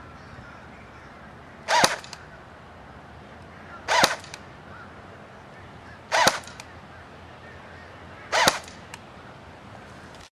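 JG MK36 (G36-style) battery-powered airsoft rifle fired single shots on semi-auto into a chronograph: four short, sharp shots about two seconds apart, each the snap of the gearbox's spring piston driving a BB through the chronograph to measure its muzzle velocity.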